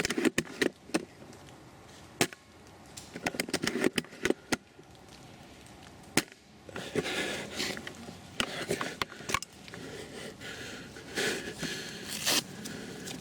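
Scattered sharp cracks of airsoft gunfire. Single shots come near the start, a quick run of them about three to four and a half seconds in, and one more just after six seconds. In the second half a scratchy rustling joins the shots.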